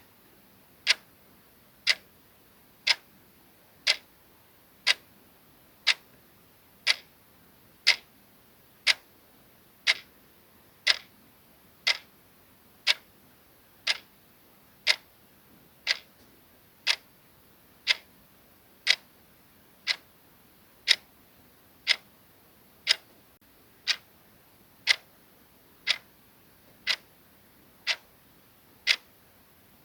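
Clock ticking sound effect: short, evenly spaced ticks, one every second.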